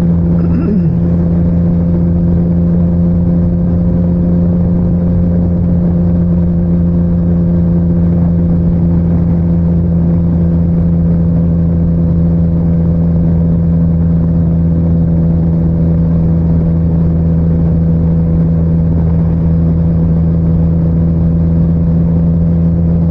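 Motorcycle engine running at a steady cruise, one unchanging drone, mixed with wind and road noise as heard at the rider's helmet.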